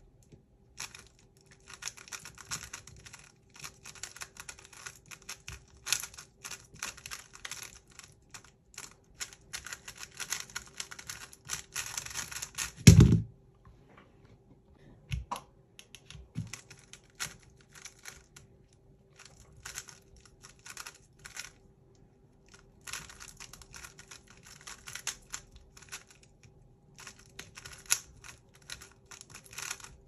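3x3 speed cube being turned fast, a dense run of plastic clicking. About 13 seconds in comes one loud thump as both hands slap down on the speedcubing timer, then a few seconds of near quiet with a couple of small knocks. The clicking turns start again, sparse at first and dense after about 23 seconds.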